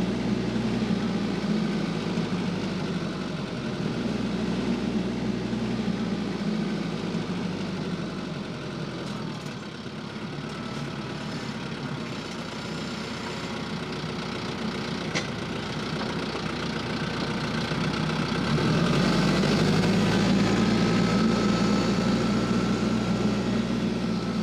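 Tractor engine running steadily, easing off in the middle and growing louder again for the last several seconds.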